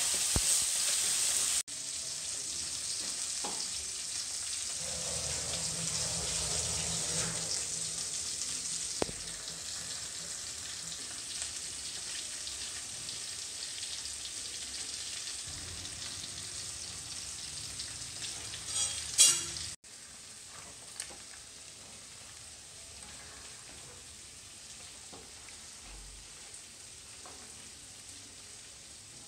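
Food sizzling as it fries in oil in a pan, with faint stirring; the sizzle drops in level abruptly twice, and a short loud clatter, like a spoon against the pan, comes about two-thirds of the way through.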